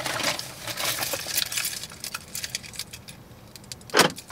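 A run of light clicks and clinks, with one sharp knock about four seconds in.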